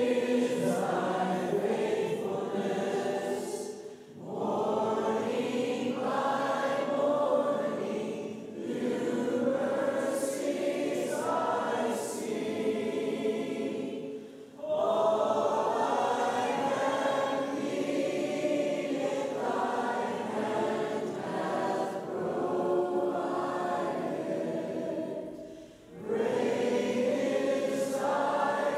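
Church choir and worship team singing a worship song together, in long phrases with short breaks about every ten seconds.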